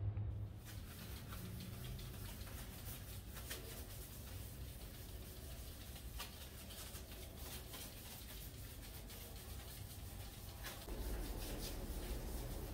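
Yellow-gloved hand rubbing and wiping across freshly laid glazed ceramic wall tiles: a scratchy rubbing dotted with small clicks and scrapes, growing louder with a low rumble near the end.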